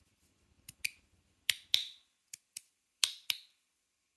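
Aluminum magnetic fidget slider (GD EDC Samsara 2.0) snapping back and forth: sharp metallic clicks in quick pairs, about four pairs, as the slide snaps to each end under its magnets.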